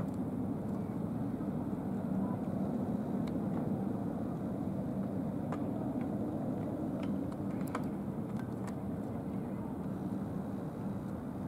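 Helicopter turbine engines idling: a steady drone with a constant low hum, and a few light clicks.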